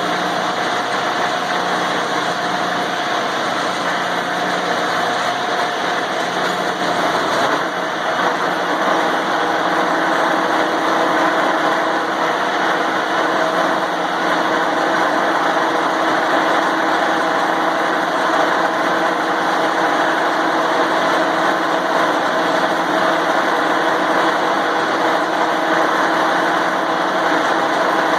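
Angle grinder running steadily while held against a snowblower tire to spin it up to speed, so the Fix-A-Flat sealant spreads inside. Its steady whine shifts slightly in pitch about seven or eight seconds in as the load changes.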